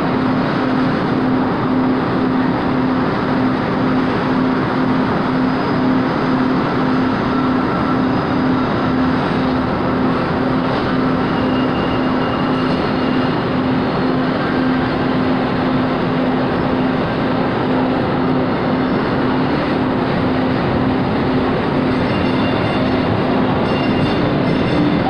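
Light-rail train running through an underground subway station: a steady, loud rumble with a pulsing low hum.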